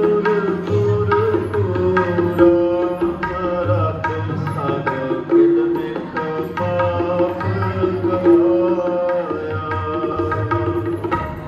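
Indian music: tabla drumming under a sustained, gliding melody.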